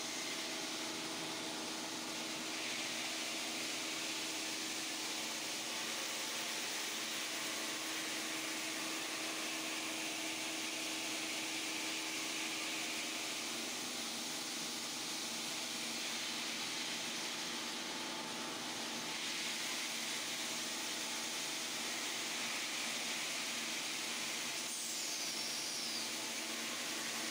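Radial-arm stone polishing machine running, its spinning abrasive head grinding across a wet stone slab: a steady hiss over a motor hum, the hiss thinning briefly a few times as the head is moved.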